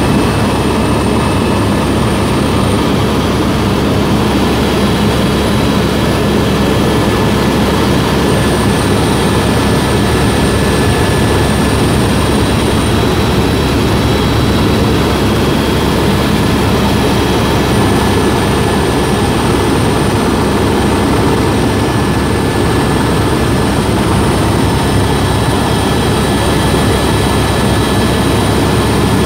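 Helicopter in flight heard from inside the cabin: a steady, loud rush of rotor and engine noise, with a thin high whine that drops out and comes back a few times.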